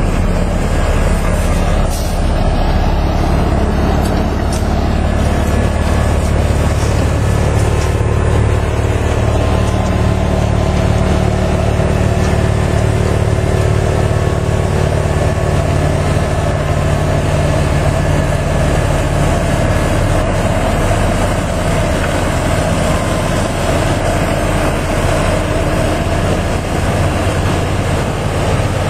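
Heavy snowblower's engine running steadily under load, a continuous loud machine drone with a steady low engine note.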